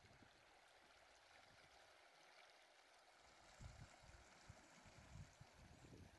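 Near silence: faint steady hiss, with a few soft low bumps in the second half.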